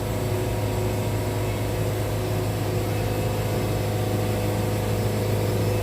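Wood-Mizer portable band sawmill running steadily, its engine giving a constant low hum with a few steady higher tones.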